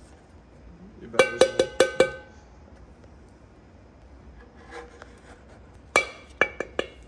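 A metal scraper rapped against a stainless steel bowl to knock off scraped-out engine oil-pan sludge: a quick run of about five ringing metallic taps about a second in, and another run of about five near the end.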